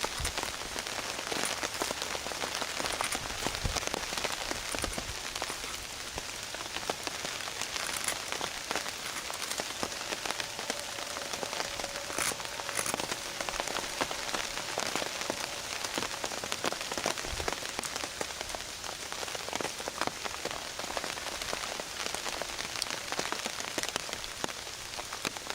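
Steady rain pattering on a tarp, a dense run of small drop ticks.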